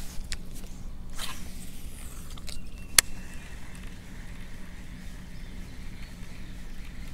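Rod-and-reel handling noises as a lure is worked from a bass boat: a brief swish about a second in and a single sharp click about three seconds in, over a low steady hum.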